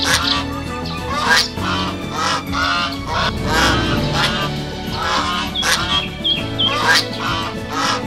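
Geese honking repeatedly, about two calls a second, over soft background music with sustained chords. A few short, high chirps from a small bird come around the middle.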